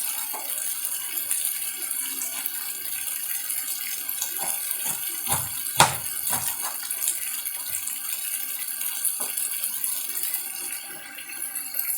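Chicken gizzard stew sizzling steadily in the pan as it cooks down, nearly done. A few light clicks and one sharp clink about halfway through.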